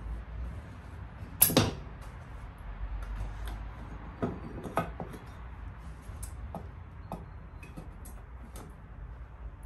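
Metal pieces clinking and knocking as they are handled during casting work: scattered light ticks, one sharper knock about a second and a half in, and two more a few seconds later, over a steady low rush.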